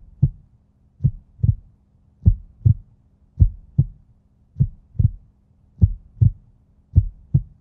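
Heartbeat sound effect: slow lub-dub double thumps, one pair about every 1.2 seconds, over a faint steady low hum.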